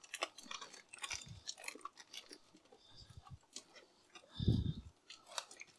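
Plastic packet of curry paste crinkling and squelching as it is squeezed out into a saucepan, with small clicks and wet squishes throughout and one duller low thump about three quarters of the way through.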